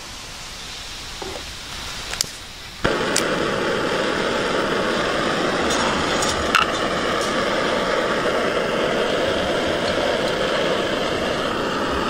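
Small camping stove being lit: a few igniter clicks about two seconds in, then the gas burner catches suddenly and runs with a loud, steady hiss.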